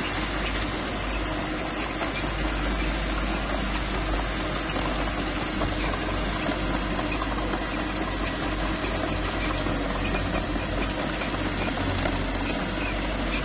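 Small bulldozer's diesel engine running steadily under a continuous low rumble.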